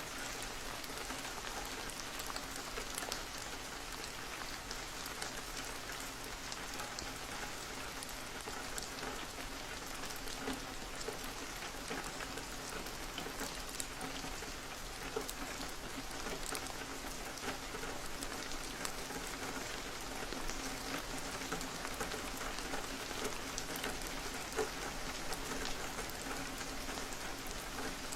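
Steady rain on a window, with many single drops ticking against it over a continuous hiss. A faint steady low hum runs underneath.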